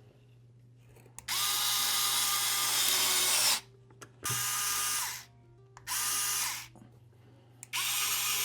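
Electric screwdriver running in four bursts, driving small screws into a bracket inside a remote controller. The first run lasts about two and a half seconds, followed by three shorter runs of about a second each, with quiet pauses between them.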